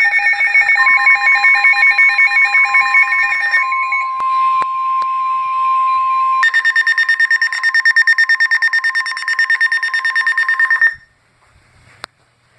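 Emergency Alert System attention signal: a loud, rapidly pulsing electronic alarm of several high tones. For its first half it is joined by a steady single tone, the NOAA Weather Radio 1050 Hz warning tone. The alarm cuts off abruptly about eleven seconds in, and a short click follows a second later.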